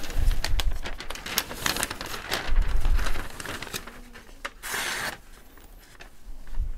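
Newspaper rustling and crinkling as it is unfolded and spread out by hand, with a couple of dull bumps of handling in the first three seconds.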